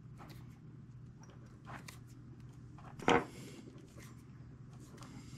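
Small clicks and scratches of stranded steel control cable and a thin metal splicing tool being handled, with one sharper tick a little past three seconds in, over a low steady hum.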